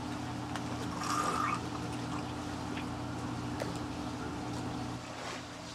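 A steady low hum runs throughout, with faint small clicks and light water sounds. About a second in comes a brief slurp, as of a drink being sucked through the straw of a juice pouch.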